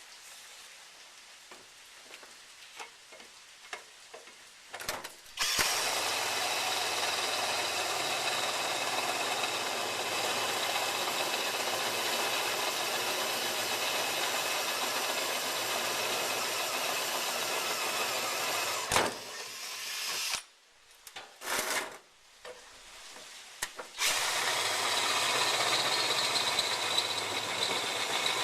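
Flux-core wire welder arc crackling steadily while laying a bead on steel angle iron, with a low hum under it. It cuts off sharply after about thirteen seconds and starts again for the last few seconds, with a few light clicks before the first run.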